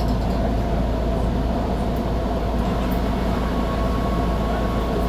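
Mercedes-Benz O500UA articulated bus's diesel engine running steadily: a constant low drone with a faint steady whine above it.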